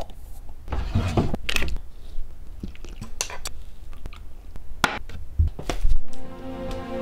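Short clicks, knocks and scrapes of objects being handled, among them a plastic scoop dug into a tub of powder. About a second before the end, music with long held notes starts.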